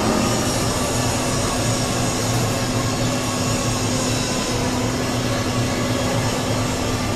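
Machinery running steadily, a dense even noise with a constant low hum and a steady droning tone.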